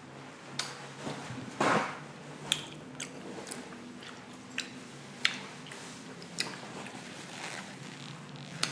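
A person chewing asparagus close to the microphone, with scattered wet clicks and smacks of the mouth, about ten in all and irregularly spaced.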